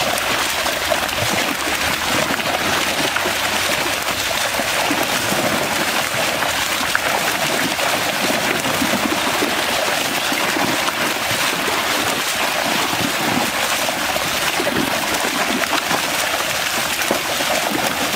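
Steady churning and splashing of pond water, a continuous watery rush without distinct single splashes.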